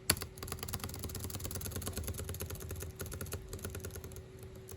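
Rapid clicking and tapping, like fast typing, dense for about three and a half seconds and then sparser, over a steady hum. A sharper click opens it.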